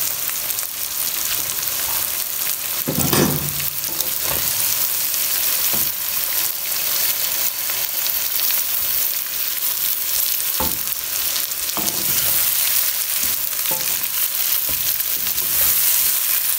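Sliced onions sizzling in hot oil in a metal pan as they fry toward light brown, stirred with a slotted wooden spatula that knocks and scrapes against the pan a few times.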